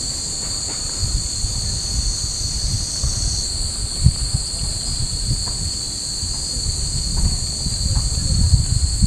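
A summer chorus of cicadas droning steadily at a high pitch; part of the chorus drops out about three and a half seconds in. Under it runs a low, uneven rumble of wind on the microphone.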